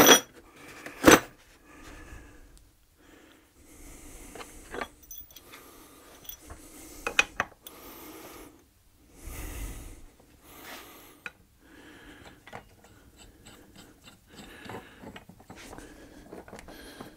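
Metal tool parts clinking and clicking with handling and scraping noise as a gear puller is taken from its case and fitted onto a belt sander's drive wheel. A sharp click about a second in is the loudest sound.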